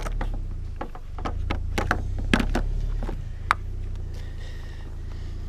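Mazda MX-5's four-cylinder engine idling steadily just after starting, with a handful of sharp clicks and knocks over it in the first few seconds.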